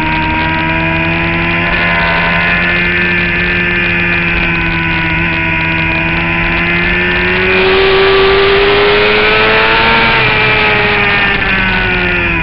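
Suzuki GSX-R750's inline-four engine running at high revs, heard from an onboard camera with wind rushing past. The engine note sags slightly through a long corner, then climbs and grows louder about eight seconds in as the bike accelerates onto the straight, and eases off again near the end.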